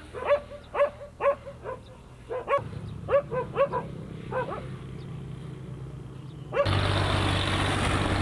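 A dog barking in short repeated barks, about two a second, dying away after about four seconds. Near the end a steady, louder rushing noise with a low hum cuts in suddenly.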